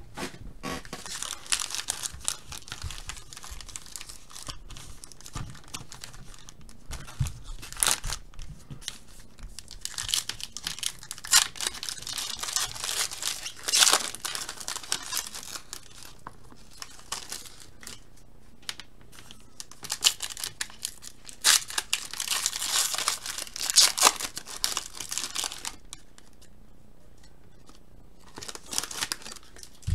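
Foil wrappers of 2017 Panini Playoff football card packs being torn open and crinkled by hand, in repeated spells of tearing and rustling with short pauses between packs.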